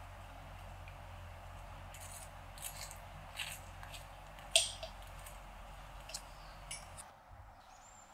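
A metal butter knife spreading jam on crisp toast: a handful of short scrapes and light clicks of the blade on the toast and the enamel plate, the loudest just past halfway.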